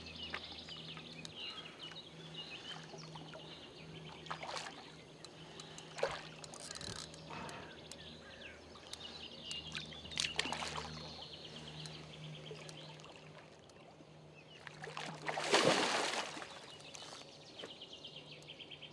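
Hooked grass carp splashing and thrashing at the surface while being played on a rod close to the bank: a few short splashes, then one bigger, longer splash about three-quarters of the way through.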